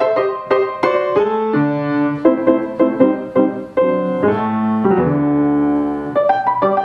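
Piano music: a run of quick notes that settles on a chord held about five seconds in, then picks up with quick notes again near the end.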